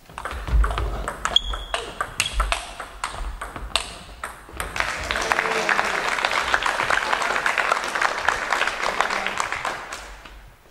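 A table tennis rally: the ball clicks sharply off bats and table in an uneven rhythm for about four seconds. Audience applause then takes over and fades out near the end.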